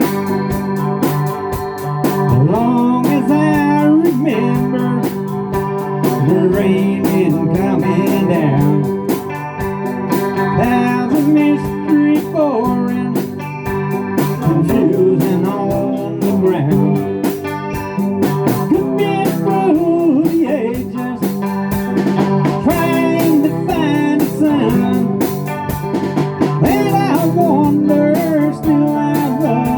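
A rock band playing: a voice singing over guitar, organ and a steady drum beat.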